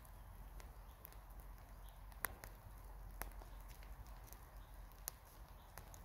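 Faint footsteps of a man and a dog moving about on leaf-strewn forest floor, with a few sharp clicks of twigs cracking, over a low steady rumble.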